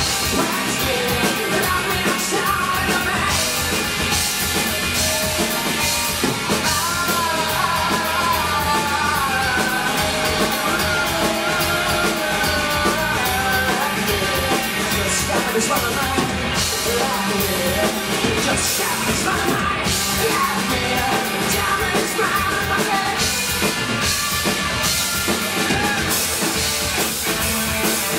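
Live rock band playing loud: two electric guitars, electric bass and drum kit, with a man singing over them.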